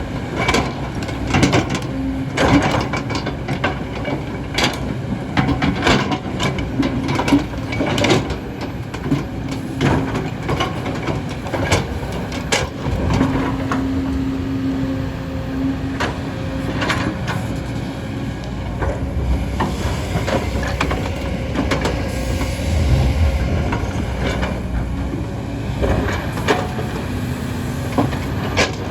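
Kobelco excavator digging: its diesel engine runs steadily under a hydraulic whine, with frequent sharp knocks and clanks from the bucket working rock and soil.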